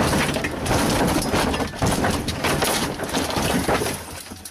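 A rally car crashing: a rapid, irregular run of knocks and crunches that fades toward the end.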